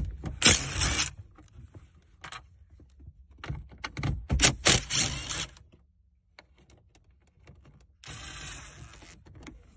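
Cordless drill-driver with an 8 mm socket running in three short bursts to back out dashboard screws, with some metallic rattling.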